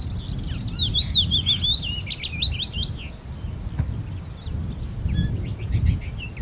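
Willow warbler singing one phrase of sweet whistled notes that slides down the scale over about three seconds, followed a little later by fainter, scattered bird notes, over a low steady rumble.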